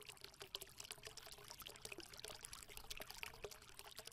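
Faint pouring, splashing water: a dense, irregular patter of small drips and splashes that fades in and out.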